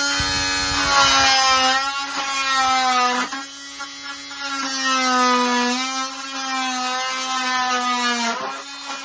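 Oscillating multi-tool with a Pitbull Starlock blade cutting through plasterboard: a steady buzzing whine that eases off briefly about three seconds in and again near the end.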